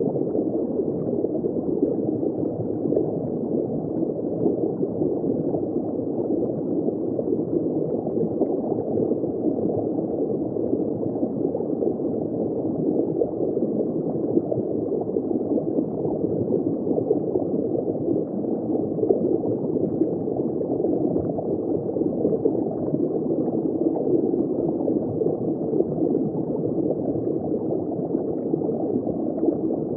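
Steady underwater bubbling and water movement heard from just below the surface: a muffled, dense mass of small bubbles with no high frequencies.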